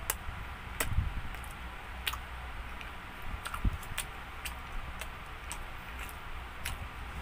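A person chewing pizza close to the microphone: irregular wet mouth clicks and smacks, about one or two a second, over a low steady hum.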